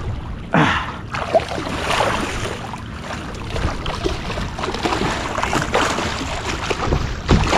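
Water sloshing and lapping around a kayak, with wind on the microphone, broken by a few sudden louder sounds about half a second in and again near the end.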